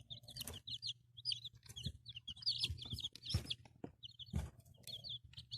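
Chickens: a rapid run of short, high peeps like those of a chick, mixed with softer clucking of hens, with a few sharp knocks among them.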